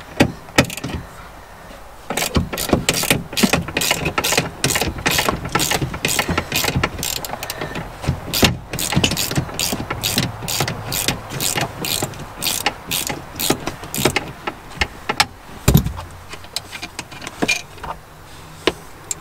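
Socket ratchet clicking in quick, even strokes as a seat-mounting bolt is turned out. The clicking starts about two seconds in and stops about three-quarters of the way through, followed by a single knock.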